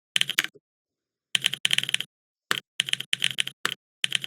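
Laptop typing with the Mac Vibes app playing a simulated mechanical-keyboard click for every keystroke. Short runs of quick clicks come with brief pauses between them, and a long run starts about a second and a half in.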